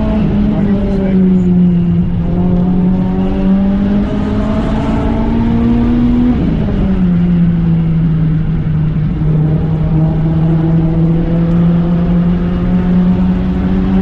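Renault Clio 3 RS 197's 2.0-litre four-cylinder engine, heard from inside the cabin, pulling with rising pitch for a few seconds. About six seconds in the revs fall abruptly, and the engine then runs at steady revs, with road and tyre noise underneath.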